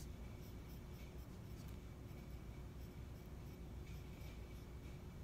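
Pencil scratching across a paper photo print in short, irregular strokes, tracing the picture so that the pressure transfers the design into the soft clay beneath. Faint, over a steady low hum.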